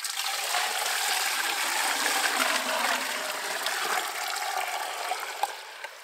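Water pouring in a steady rush that starts suddenly and cuts off after about six seconds.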